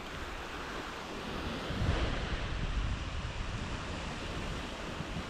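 Small surf waves washing onto a sandy beach, with wind buffeting the microphone; the noise swells about two seconds in.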